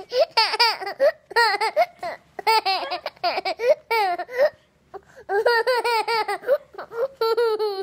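A toddler laughing hard in repeated fits, each a quick run of high-pitched giggles about a second long, with short breaks for breath between.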